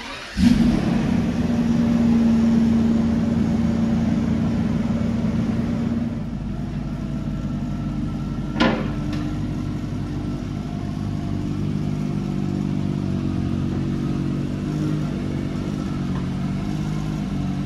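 Mercedes W140 S600's V12 engine catching and starting about half a second in, then running at a fast idle that settles a little lower around six seconds in and idles steadily. A single sharp knock near the middle.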